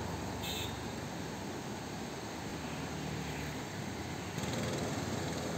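Swollen floodwater rushing and churning over rocks in white-water rapids, a steady rushing noise.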